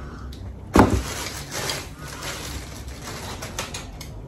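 A folded metal light stand being taken out and handled: one sharp knock about a second in, then light clicks and rattles of the stand's legs and tubes.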